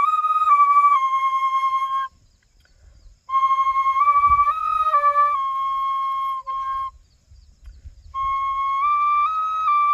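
Bansuri (single flute) played live: a high, clear folk melody in short phrases, stopping briefly twice for breath.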